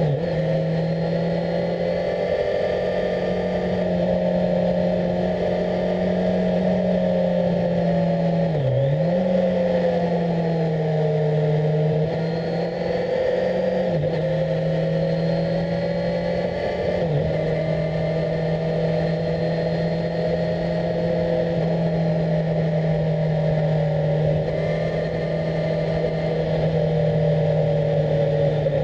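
Kawasaki Z1000SX's 1043 cc inline-four engine running at a fairly steady pitch under way, heard from on board the motorcycle. There are a few brief dips in engine pitch, the sharpest about nine seconds in and smaller ones around fourteen and seventeen seconds.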